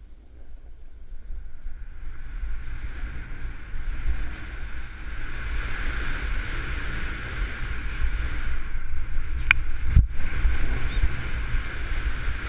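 Snowboard sliding and carving over groomed snow, a scraping hiss that builds as speed picks up, with wind buffeting the helmet-mounted camera's microphone. A sharp click and a short thump come near the end.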